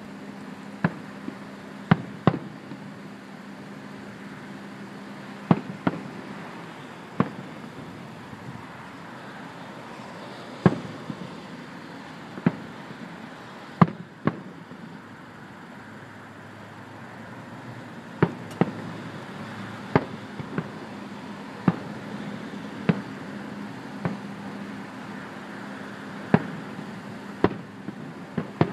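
Distant aerial fireworks shells bursting: sharp bangs, one every second or two, some in quick pairs, over a steady low hum.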